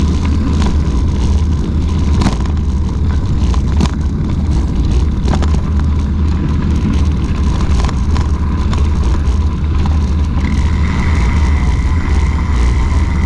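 Wind buffeting the microphone of a camera on a moving mountain bike, a loud steady rumble, with the tyres rolling on a gravel path and scattered clicks and rattles. A thin steady whine runs underneath, joined by a higher one about ten seconds in.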